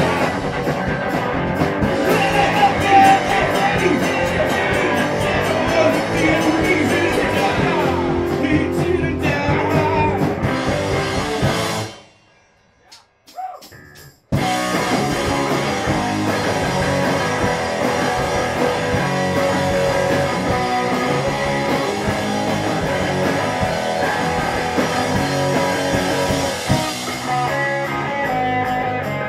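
Live rock band playing: electric bass, drum kit and sung vocals. Partway through, the sound drops out for about two seconds, then the music comes back suddenly.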